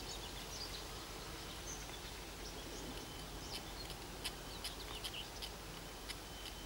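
Quiet outdoor background with scattered short bird chirps and calls.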